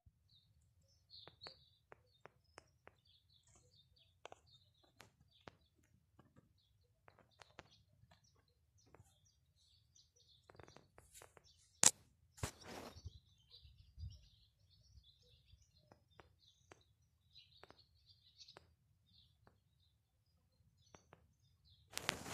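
Small birds chirping faintly and on and off, with scattered light clicks and a sharp click followed by a brief rustle about twelve seconds in.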